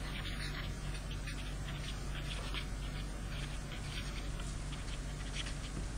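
Faint, irregular scratching of handwriting strokes over a steady low electrical hum.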